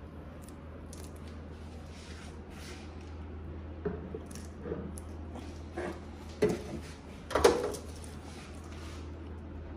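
Ceramic latte cups and stainless-steel milk pitchers set down and handled on a counter: a few scattered knocks and clinks, the loudest about seven and a half seconds in, over a steady low hum.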